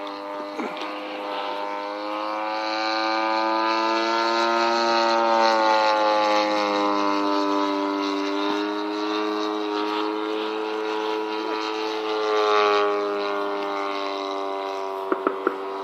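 Zenoah G-38 single-cylinder two-stroke gas engine of a large radio-controlled model plane in flight, a steady high buzzing note. It swells louder and bends down in pitch as the plane passes, about five seconds in and again about twelve seconds in. A few quick clicks near the end.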